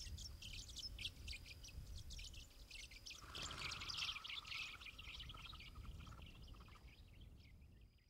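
A flock of Bourke's parrots chirping: many quick, high chirps in close succession. A lower, steadier sound joins for about three seconds in the middle, and the sound fades away at the end.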